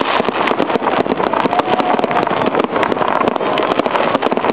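Fireworks crackling and popping in a rapid, dense stream of sharp reports that never lets up.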